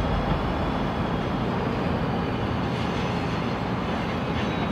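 EMD GP60 diesel locomotive's 16-cylinder 710 engine running as it pulls a string of boxcars along at low speed, a steady rumble of engine and rolling freight cars.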